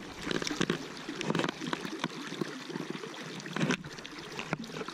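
River water splashing and sloshing around a landing net held in the current, with short irregular splashes.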